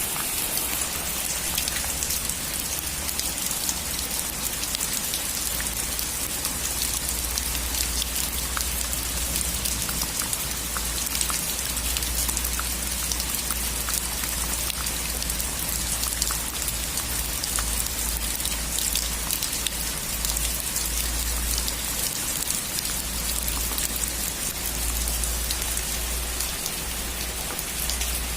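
Steady rain falling on a roof, an even hiss with many individual drops ticking.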